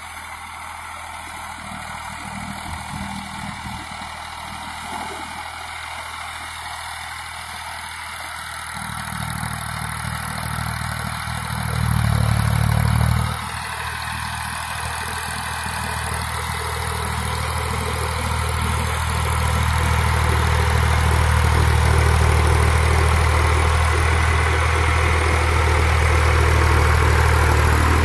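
Powertrac 445 DS Plus tractor's diesel engine running steadily while it drives a rotavator through flooded mud. It grows louder as the tractor draws close, with a brief louder surge a little before halfway.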